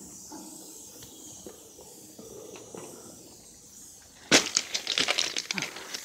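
Faint hiss, then about four seconds in a sudden burst of loud, dense rustling and crackling: phone handling noise as it rubs against clothing and a body moving right over it.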